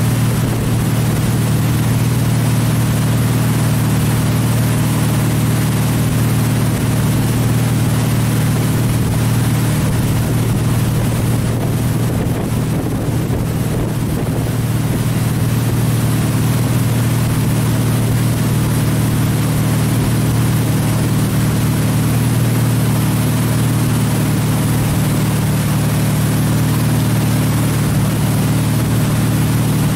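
Tow boat's engine running steadily at speed, a constant low drone, with the rush of the wake and wind noise over it.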